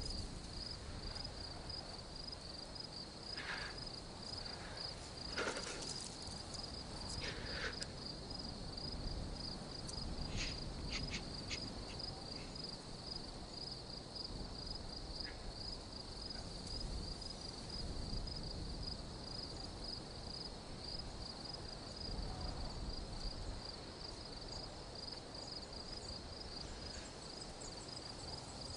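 Crickets chirping steadily in a fast, even high-pitched pulse, a night-time ambience, with a few brief soft sounds in the first several seconds.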